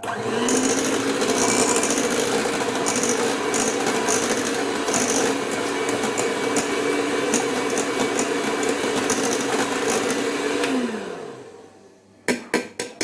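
Electric hand mixer beating cake batter at a steady speed, then switched off and winding down about eleven seconds in. A few sharp knocks follow near the end.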